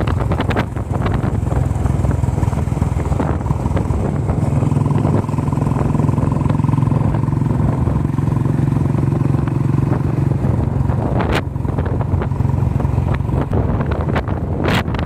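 A vehicle engine running steadily under heavy wind noise on the microphone, with a couple of sharp knocks about eleven seconds in and near the end.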